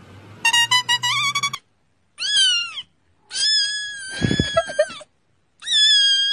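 A quick run of high musical notes, then a kitten meowing three times in high, thin calls. The second meow is long and held, with a low thump partway through it.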